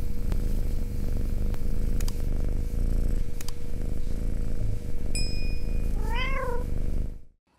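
A domestic cat purring steadily, with a few sharp clicks and a short bright chime about five seconds in, then one short meow that rises and falls about six seconds in.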